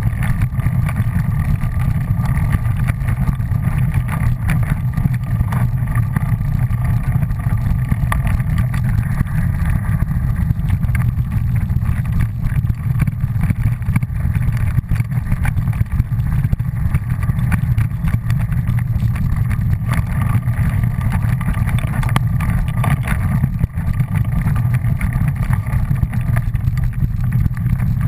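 Steady low rumble of a fast ride along a rough, leaf-covered dirt trail, with small knocks from bumps scattered through it.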